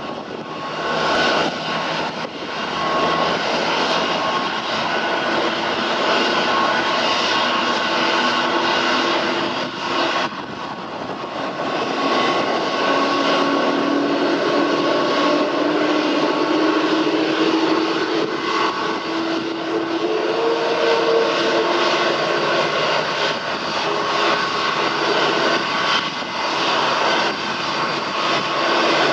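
Jet airliner engine noise from a Boeing 737-700's CFM56-7B turbofans as it taxis onto the runway and starts its takeoff roll: a steady jet roar with a whine that slowly rises in pitch through the middle.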